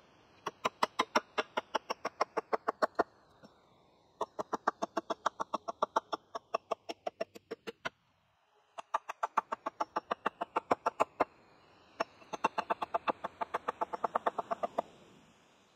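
Hatchet chopping quickly at the end of a wooden pole on a chopping block, shaping its taper: light strokes about five a second, in four runs with short pauses between them.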